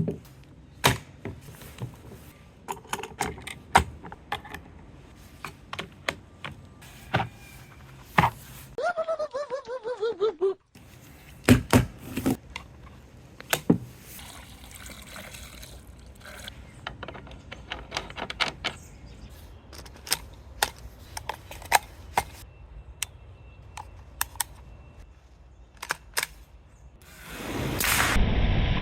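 Pistol being fitted with accessories: a long string of sharp clicks, snaps and knocks of parts locking onto the gun, with a quick ratcheting run about nine seconds in. Near the end a steady, louder rush of noise comes up.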